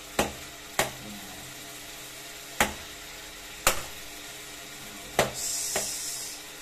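Stainless steel ladle knocking and scraping in a metal pot while breaking up firm minced beef as it sautés: five sharp clacks at uneven intervals over a faint sizzle. A short hiss of sizzling comes near the end.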